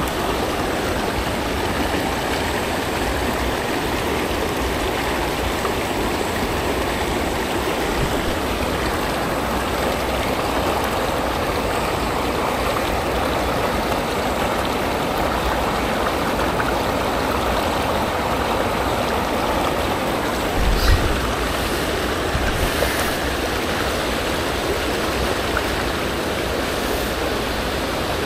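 Shallow, rocky small river rushing steadily over stones. There is one brief low bump about three-quarters of the way through.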